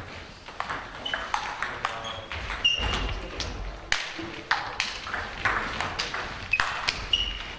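Table tennis balls clicking again and again as they strike tables, bats and the floor, many irregular hits overlapping from play in a large hall. A few short, high squeaks sound in between.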